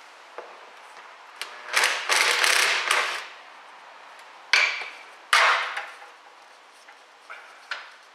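Hand tools clattering and scraping against the metal sump of a ZF 6HP26 automatic transmission: three noisy bursts of about a second each, with a few light clicks between them.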